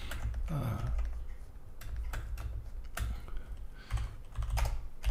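Computer keyboard keys clicking, a handful of separate, irregularly spaced keystrokes over a low steady hum.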